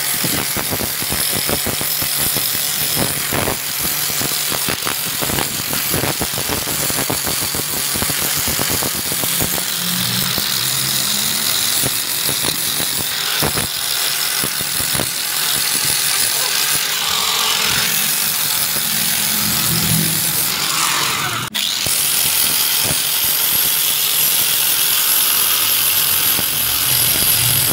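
Electric angle grinder with an abrasive disc sanding rust and old paint off a steel motorcycle swing arm, running loudly and steadily, with a brief break about three-quarters of the way through.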